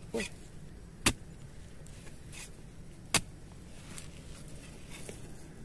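Metal digging spade chopping into dry soil at the base of a bamboo shoot to cut it free: two sharp strikes about two seconds apart, with fainter scrapes of the blade in the earth.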